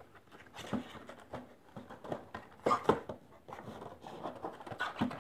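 A cardboard Funko Pop box being opened by hand: the top flap lifted and the plastic insert holding the figure slid out. This makes a series of short, light scrapes and taps of cardboard and plastic.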